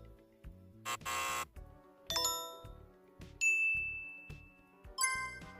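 Short electronic video-game sound effects played one after another. A brief buzzy blip comes about a second in, then a bell-like chime ding, a held high beep, and another chime ding near the end.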